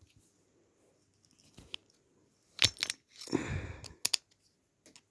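Small metal parts and hand tools clinking while a motor is taken apart: a few sharp clicks about two and a half seconds in, a short rattling scrape, then another couple of clicks.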